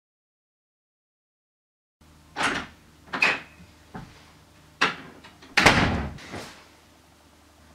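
Silence for about two seconds, then a wooden room door is opened and shut in a few sharp knocks and a short squeak. A person then flops heavily onto a cushioned sofa, the loudest thud, a little past the middle.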